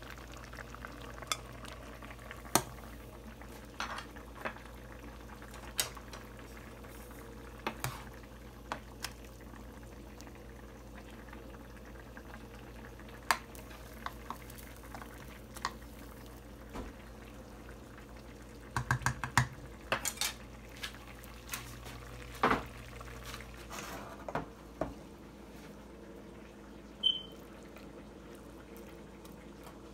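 Scattered clinks and scrapes of a serving utensil against a pan and a plate as food is dished up, with a quick run of clatters a little past halfway. A steady low hum lies under it and stops about three quarters of the way through.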